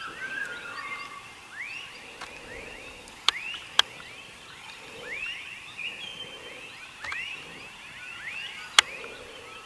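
A night chorus of calling frogs: many short chirps that slide down in pitch, overlapping and repeating. Three sharp clicks cut through it, two close together a few seconds in and one near the end.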